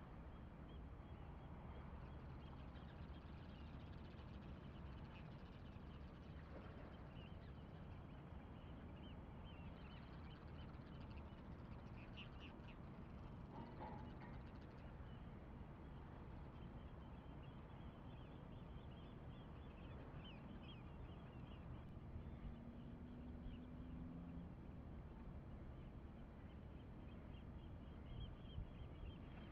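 Faint outdoor ambience: a steady low rumble with scattered short bird calls throughout.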